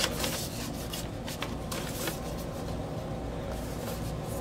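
Soft rubbing and rustling of vinyl LPs and their paper inner sleeves being handled, with a few faint ticks about a second in.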